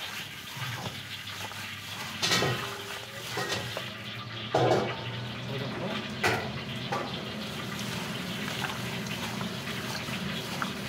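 Gloved hands mixing marinated duck pieces with flour in a stainless steel bowl: wet squelching of the coated meat, with a few sharper knocks against the bowl, the loudest about halfway through.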